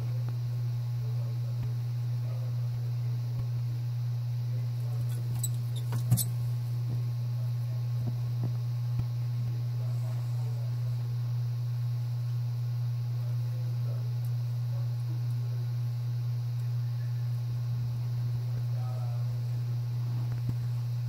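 A steady low hum, with two or three sharp clicks about six seconds in and faint scattered rustles.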